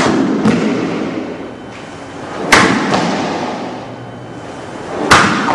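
Japanese sword cutting through rolled, water-soaked tatami mat targets in diagonal test cuts: two sharp strikes about two and a half seconds apart, each with a fading tail, and a fainter click about half a second in.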